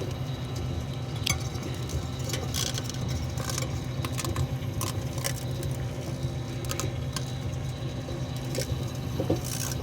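Microwave oven running with a steady low hum, with scattered sharp crackles and snaps from an EMF-shielding beanie arcing and burning inside it.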